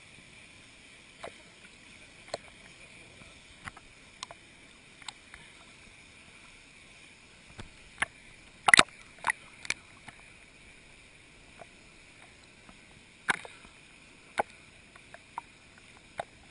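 Water slapping and splashing close to a camera at the water's surface: scattered sharp slaps, a loud cluster of several about halfway through, over a steady hiss of moving water.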